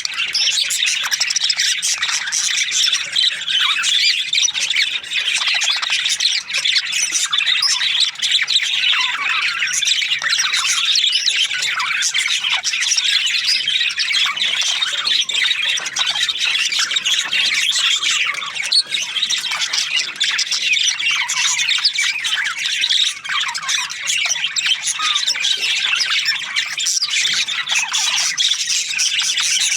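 A flock of budgerigars chattering and squawking nonstop, many birds calling over one another in a dense, high-pitched din.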